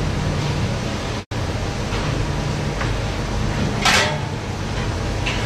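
Steady hum of a commercial kitchen's ventilation and equipment, with a brief clatter about four seconds in. The sound cuts out for an instant just over a second in.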